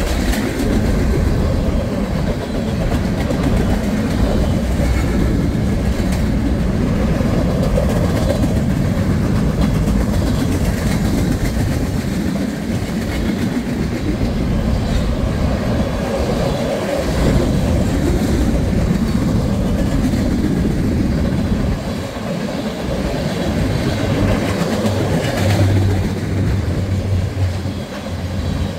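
Freight train cars passing close by: covered hoppers and then tank cars rolling steadily, steel wheels running on the rail.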